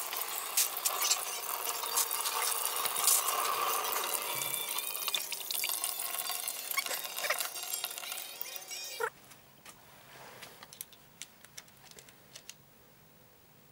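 Engine coolant draining from the Honda NTV 650 in a thin stream, pouring and splashing into a plastic bucket. It cuts off abruptly about nine seconds in, leaving only a few faint metal clicks from a wrench on a valve adjuster.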